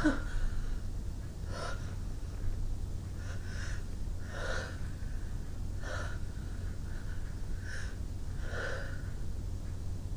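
A woman's short, sharp gasping breaths and sniffs, about one every second or so, as a sneeze builds.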